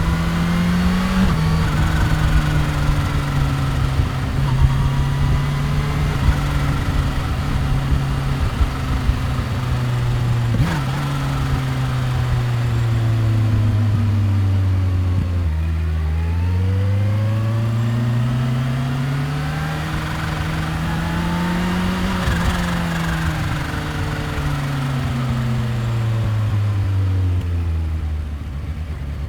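2015 Kawasaki Ninja H2's supercharged inline-four engine, heard from the rider's seat. The revs sink slowly, then climb steadily from about halfway, then drop away again and settle low near the end.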